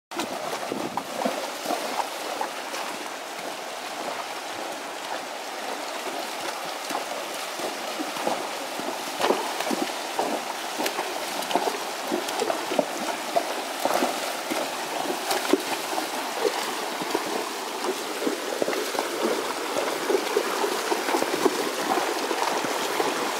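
Shallow mountain stream rushing and gurgling over rocks, with irregular splashes and knocks as horses wade across it.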